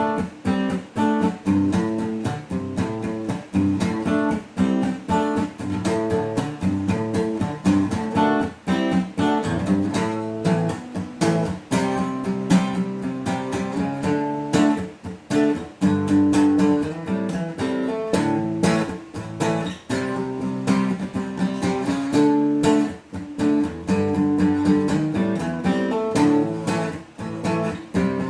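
Tribo TR-05 NELSON acoustic guitar played solo and unamplified, with chords strummed in a steady rhythm.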